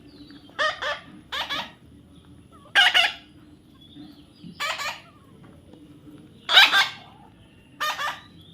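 Parrot squawking: six loud, harsh calls, each under half a second, spaced one to two seconds apart.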